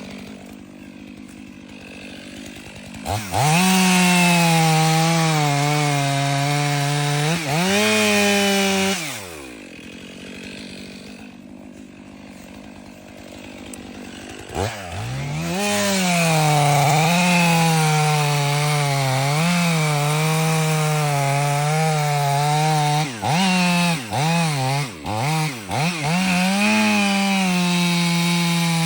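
Chainsaw idling, then revved to full speed a few seconds in, its pitch sagging and wavering as it cuts into the wood. It falls back to idle, revs up again about halfway through, blips the throttle several times in quick succession and goes on cutting.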